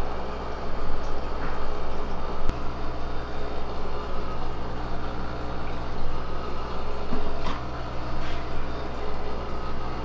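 Steady machine hum with an even rushing noise, like a running pump or fan, with a few faint clicks.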